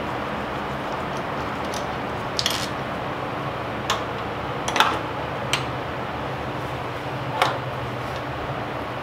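About five sharp clicks and knocks from hands handling the distributor on a Honda D16 engine bay as it is worked off for an O-ring change, the loudest a little before the middle, over a steady background hum.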